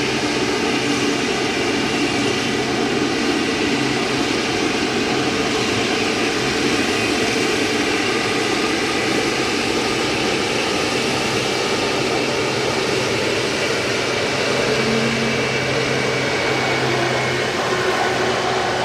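Jet airliner engines running: a steady, loud rush of noise with several whining tones held throughout.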